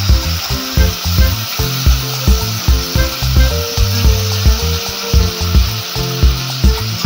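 Beef strips sizzling steadily as they fry in hot butter in a stainless steel pot, pushed around and spread with a wooden spoon. Background music with a steady beat plays underneath.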